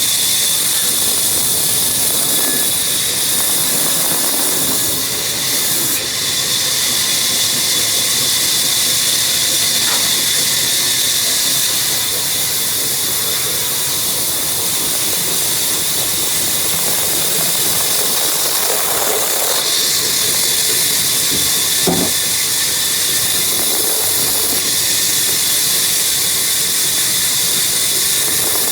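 Power woodworking machine cutting wood, a steady loud high hiss with a faint tone under it and a few small knocks along the way.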